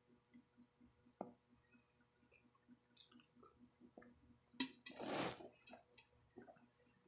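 Close-up chewing of a mouthful of spaghetti with hot dog slices: soft, wet chews at about four a second, with a sharp click about a second in and a louder noisy rush lasting about a second around five seconds in.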